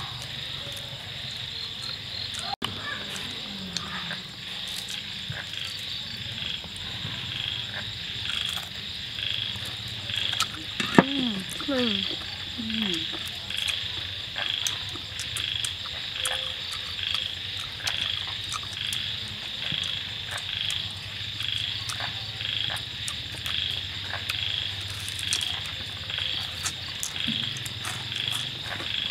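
Night chorus of frogs and insects: a steady high call repeating a little more than once a second, with other calls behind it. Scattered sharp clicks of chewing crispy fried frog come over it, the sharpest about eleven seconds in.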